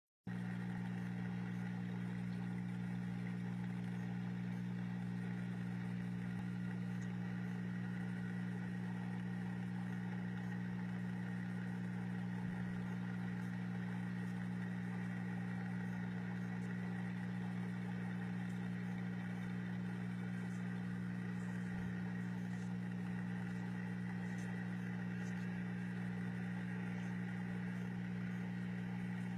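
Electric pump of an aquaponics fish tank humming steadily at a low pitch, with no change in speed or level.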